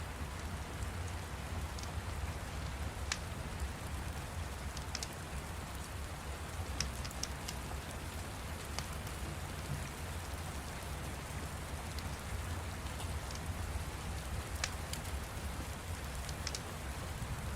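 Steady rain with a low rumble underneath, and a fire crackling in scattered, irregular sharp pops.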